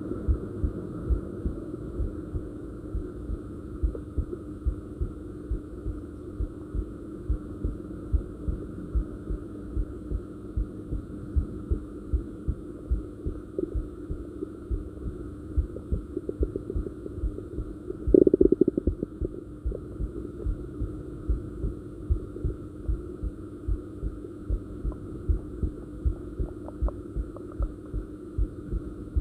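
Human heartbeat picked up close against the body: steady, evenly spaced low thumps over a constant hum. About eighteen seconds in, a brief louder gurgle of the stomach growling breaks through.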